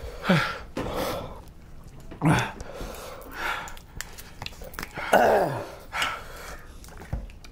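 Men groaning and breathing hard from the burn of an extremely hot chili-extract lollipop: three short groans that fall in pitch, with heavy breathing in between.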